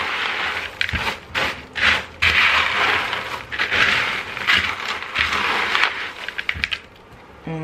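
A spatula stirring Rice Chex cereal in a plastic mixing bowl: repeated irregular scraping and rustling strokes as the dry, partly chocolate-coated pieces tumble against the bowl.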